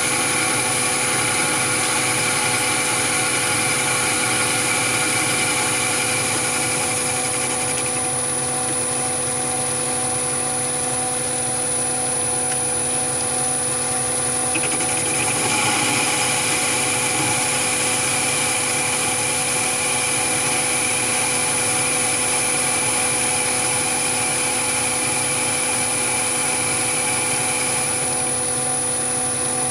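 Chinese mini lathe running at about 690 rpm, a steady machine whine with several held tones. A carbide insert is turning a long taper on mild steel, fed by a motor-driven compound slide. One of the higher tones drops away about eight seconds in and comes back about halfway through.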